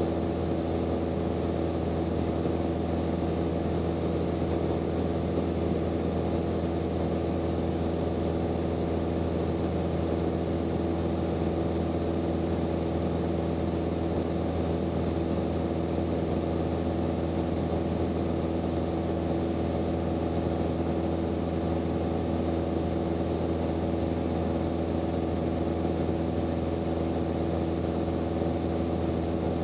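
Steady, unchanging drone of the Grumman AA-5B Tiger's four-cylinder Lycoming O-360 engine and propeller in level cruise, heard from inside the cockpit.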